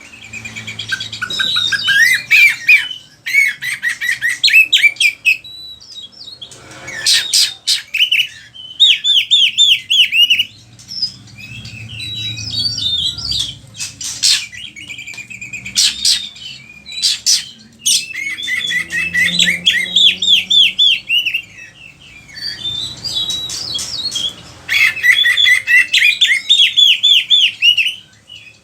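Oriental magpie-robin (kacer) singing loudly and continuously: fast runs of repeated chattering notes and varied phrases, including calls mimicked from other birds, broken by short pauses and a few sharp loud notes.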